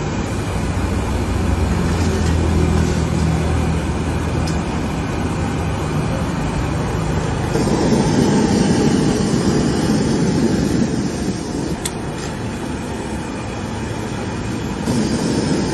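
Steady road traffic noise from passing vehicles, with an engine hum early on and a louder vehicle passing around eight to ten seconds in.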